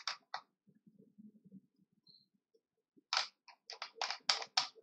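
Keys being struck on a computer keyboard: two quick keystrokes at the start, a short lull, then a steady run of about a dozen keystrokes from about three seconds in.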